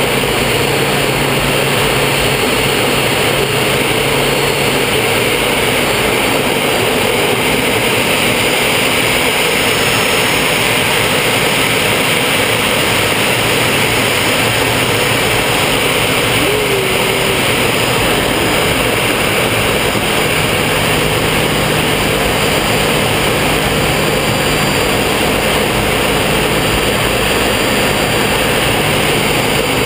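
Steady cockpit noise of a Folland Gnat jet in flight: its Bristol Siddeley Orpheus turbojet running and air rushing past the canopy, an even noise that holds the same level throughout.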